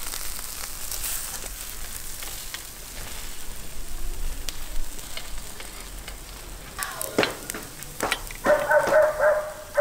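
Skewered lamb sizzling and crackling over hot charcoal, with a few sharp clinks as the metal skewers are turned. Near the end an animal's pitched call repeats in short pulses.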